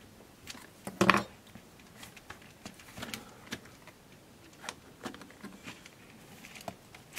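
Clicks and light knocks of a circuit board and plastic case parts being handled while a Casio VL-1 is taken apart, with one louder clatter about a second in.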